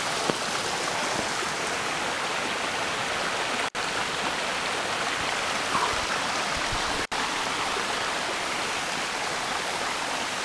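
Small rocky stream rushing over stones: a steady, even rush of water, cut off for an instant twice, about four and seven seconds in.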